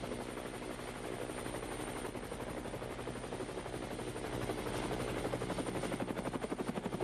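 Helicopter rotor chopping with a rapid, even beat that gets stronger near the end, with a thin high whine over it.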